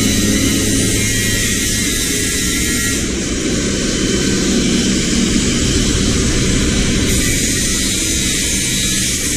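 Steady, loud rushing noise of a running machine, with a low hum underneath.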